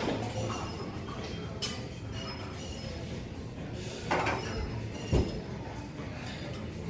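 Gym weights clinking and knocking a few times, with the strongest knocks about four and five seconds in, over a steady low hum.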